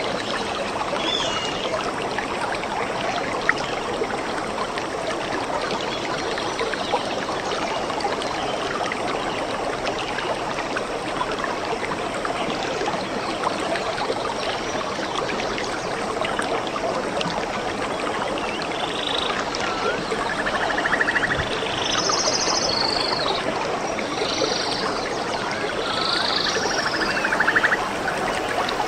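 A stream running steadily, with a scatter of short animal calls and trills, bird or frog, in the second half.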